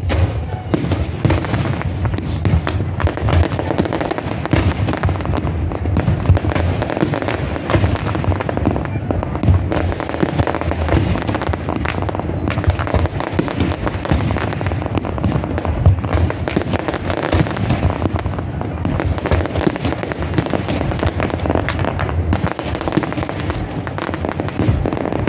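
Aerial fireworks display: a dense, continuous string of bangs and crackles from bursting shells.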